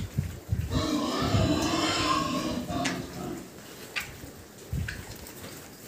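A piglet squeals for about two seconds, starting just under a second in, over the low grunting of a pen of piglets.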